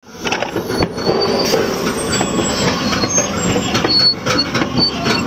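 Steel pipe being cold-drawn through a die: steady mechanical noise with many sharp clicks and short, high metal-on-metal squeaks.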